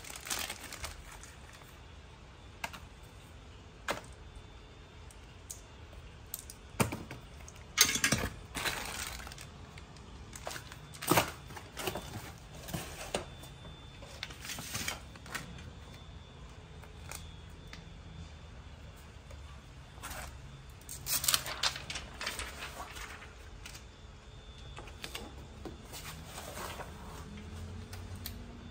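Small hard parts and packaging being handled: scattered clicks, knocks and light rattles of the TV wall-mount brackets and hardware. The loudest knocks come about eight seconds in, with another flurry around twenty-one seconds.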